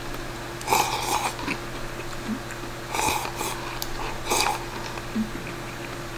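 A man slurping instant cup noodles from the cup with chopsticks: three short, noisy slurps, about a second in, around three seconds in and again just after four seconds, with eating sounds between.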